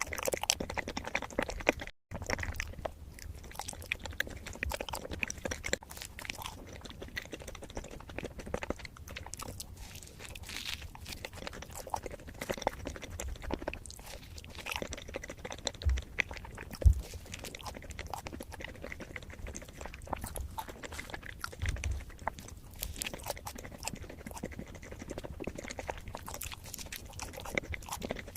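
Close-miked eating: irregular chewing, biting and crunching with many small, wet mouth clicks. There is one loud low thump about seventeen seconds in.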